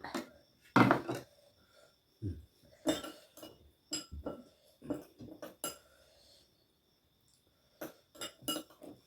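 Irregular clinks and knocks of spoons against plates and dishes while food is served and eaten, with a short lull about two-thirds through.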